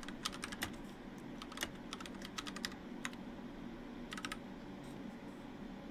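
Computer keyboard typing: short, irregular runs of light key clicks over a faint steady hum.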